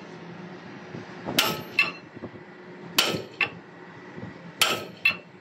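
A sledgehammer strikes a steel drift bar on a grab's hydraulic cylinder mount, driving out the mounting pin. There are three heavy metallic blows about a second and a half apart, each ringing briefly and each followed by a lighter knock.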